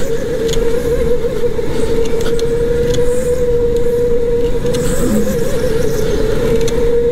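Electric go-kart's motor whining at a steady pitch over a rushing noise, on a warm-up lap at reduced power before full power is switched on.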